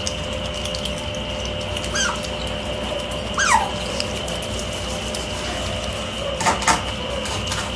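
Pet otters giving two short high squeaks that fall steeply in pitch, about two seconds and three and a half seconds in, with a few sharp clicks near the end over a steady background hum.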